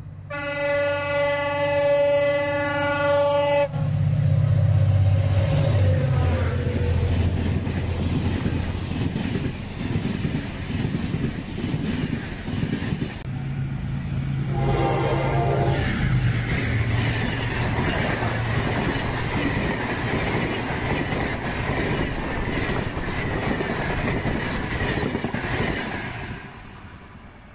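Diesel passenger train horn sounding one long blast, then the heavy rumble of the train running past. A second, shorter horn blast comes from an approaching diesel locomotive, followed by the rattle and clatter of passenger coaches rolling close by, fading away near the end.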